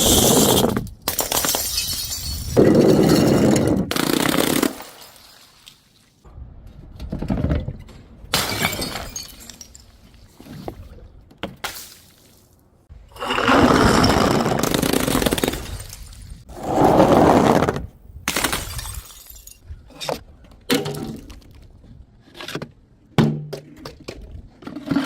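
Glass bottles and jars shattering and being crushed: a series of loud breaking crashes, each lasting a second or more, then a scatter of short clinks and knocks near the end.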